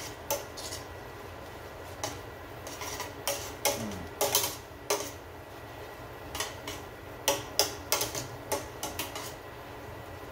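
Pan of Marsala wine reducing on the stove, with irregular light clicks and clinks coming in bunches.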